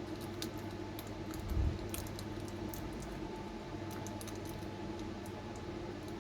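Small clicks and crinkles of hands working Kapton tape and decoder wires into a small model locomotive body, with one low bump about a second and a half in, over a steady background hum.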